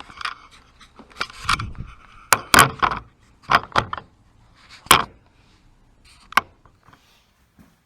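A pick tool and hands working at a plastic LED turn-signal housing in a motorcycle fairing: a handful of sharp clicks and knocks with rustling handling noise between them.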